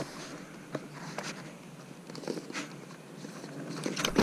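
Faint rustling and a few scattered light taps from handling close to the microphone, a woolly sleeve brushing over it.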